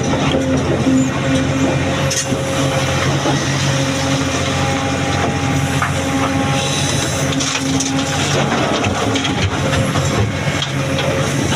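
Excavator's diesel engine running steadily under load while it loads stone boulders. A few sharp knocks come through, about two seconds in and around seven seconds in.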